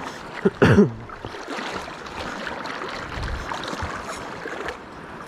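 Shallow seawater sloshing and splashing around wading legs, a steady crackly wash. About half a second in, a brief loud sound that falls in pitch cuts across it.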